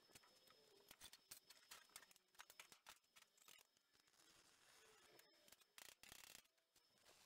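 Very faint: a stick welder's arc crackling briefly about halfway through, among scattered light metallic clicks and taps.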